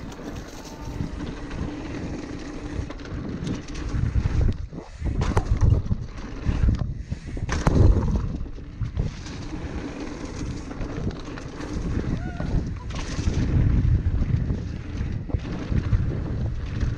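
Ragley Blue Pig hardtail mountain bike ridden down a dirt trail: wind buffeting the microphone, tyres rolling over the ground and the bike jolting and rattling over bumps, roughest about five and eight seconds in.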